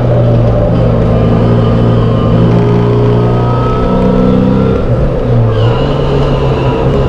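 MGB race car's B-series four-cylinder engine running hard at high revs, heard from inside the cockpit. The engine note dips briefly about five seconds in, then picks back up.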